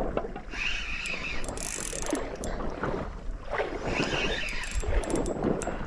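Spinning reel being cranked while a hooked fish pulls on the line, a mechanical winding with scattered clicks. Sea water washes against the rocks below in two swells.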